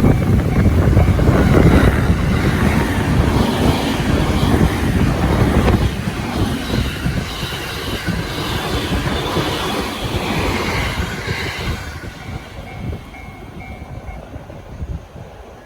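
Electric train passing close over a level crossing, a loud run of wheel and rail clatter that dies away about twelve seconds in. As it fades, the crossing's warning bell can be heard again, ringing in short repeated tones.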